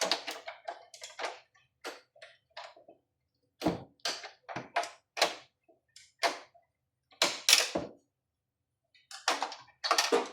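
Irregular clicks, taps and knocks of a patient monitor's old plastic housing and hand tools being handled during disassembly, a dozen or so separate strikes with short pauses.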